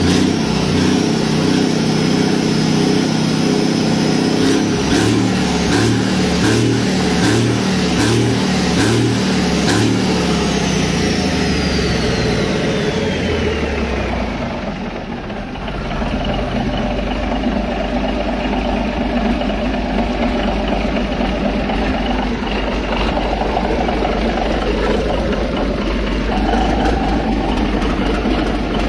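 Large diesel engine running at raised speed, then slowing about halfway through, with a high whine sliding down in pitch as it comes off. It then settles into a steady idle.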